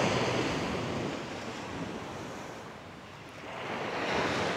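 Small sea waves breaking and washing up a sandy beach: one wash fades away over about three seconds, then the next wave swells near the end.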